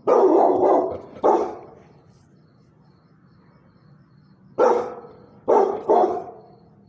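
A large brindle bully-type dog barking: two or three barks at the start, then three in quick succession about four and a half seconds in.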